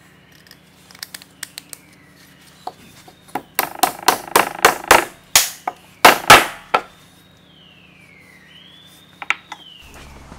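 Shop clatter: a quick run of sharp knocks and clacks lasting about three seconds, starting a few seconds in, over the steady hum of a running electric motor, with faint high squeaks gliding up and down.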